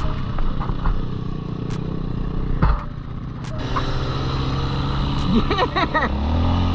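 Off-road dirt bike engines running at speed, among them a Kawasaki KLX140's small four-stroke single. A few sharp knocks come through, the loudest about two and a half seconds in, and a wavering higher-pitched sound enters near the end.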